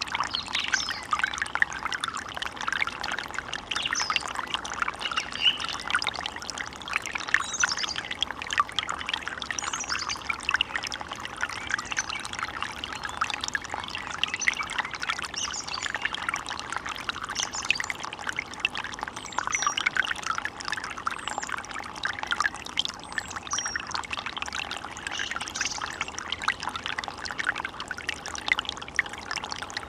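Small stream of water babbling and trickling steadily, with dense splashing over rocks.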